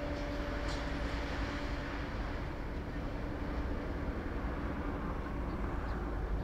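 Distant jet-engine noise of an ANA Boeing 787 on final approach with its landing gear down, a steady rushing sound. A steady low hum underneath fades out about two seconds in.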